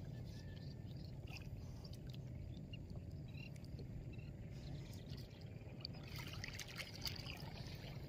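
Small paddled boat moving through shallow water: faint splashes and dripping, busier about six to seven seconds in, over a steady low rumble.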